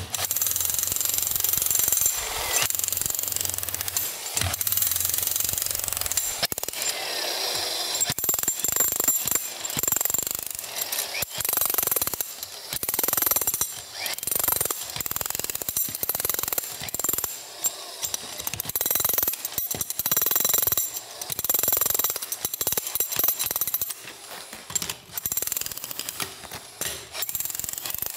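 Corded electric demolition hammer with a flat chisel bit hammering into the joints between stone flagstones. It runs in repeated bursts with short pauses.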